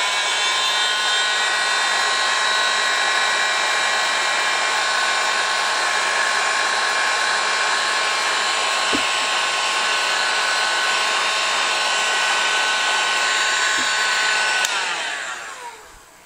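Electric heat gun running steadily, blowing hot air to shrink heat-shrink tubing over soldered wire joints: an even rush of air with a steady fan whine. Near the end it clicks off and the whine falls away as the fan winds down.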